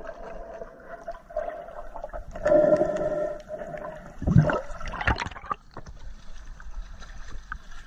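Muffled water noise heard through a camera held underwater in the sea: sloshing and gurgling with a louder surge about four seconds in. Then lighter sloshing as the camera comes up among people wading in the shallows.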